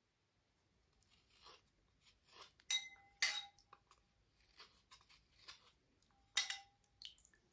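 Hard slate cubes being handled and cleaned: soft scraping and rubbing between sharper clinks as the pieces knock together. The three loudest clinks come a couple of seconds in, about half a second later, and near the end, each ringing briefly.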